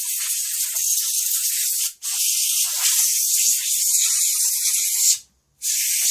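Air duster spraying in long blasts to blow dust out of a graphics card's cooler: a loud, steady hiss that pauses for a moment about two seconds in and stops briefly near the end.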